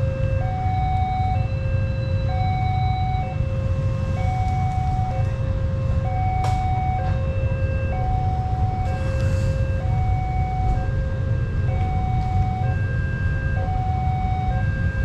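Railway level-crossing warning alarm sounding continuously: an electronic two-note signal alternating low and high, each note about half a second, warning road traffic that a train movement is coming and the barriers are down. A steady low rumble runs underneath, with one sharp click about six seconds in.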